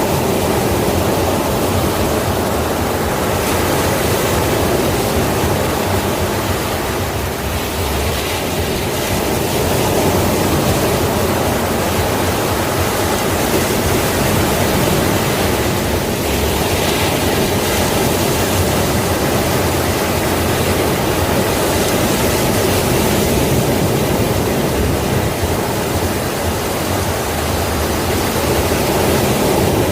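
Sea waves breaking and washing on the shore in a steady, continuous surf, with only slight swells in loudness.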